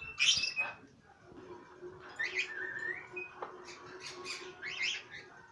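Patagonian conures making short, scratchy calls: a loud one just after the start, then a run of several more later, a few of them rising in pitch. A faint steady hum underneath starts about a second in.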